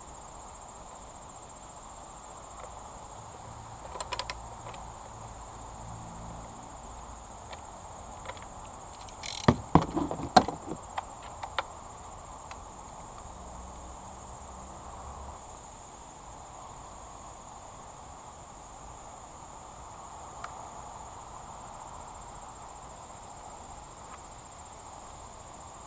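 A steady high insect trill throughout. About ten seconds in comes a quick cluster of sharp clinks and knocks of hand tools and parts being handled during work on the outboard, with a smaller clink about four seconds in.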